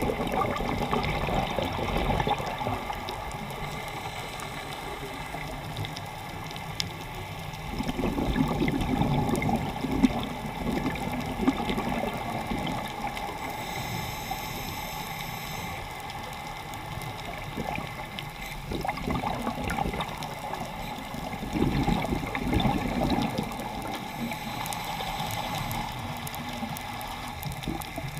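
Underwater sound of a scuba diver breathing through a regulator, heard through a GoPro housing: a steady water rush with a gurgling surge of exhaled bubbles about every ten seconds.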